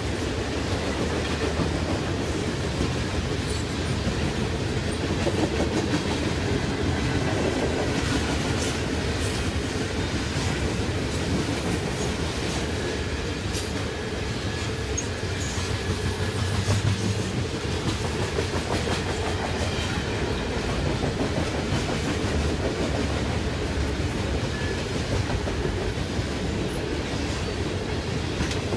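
A CN freight train of covered hopper cars rolls steadily past at close range, its steel wheels running on the rails in a continuous low noise.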